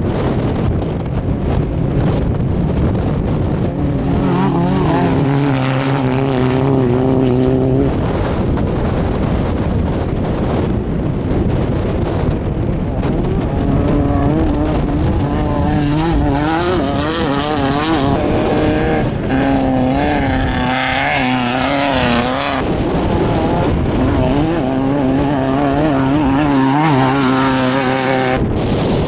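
Engines of Volkswagen Beetle-bodied off-road race cars running hard. The engine note holds steady for several seconds at a time, three times, and wavers in pitch in between.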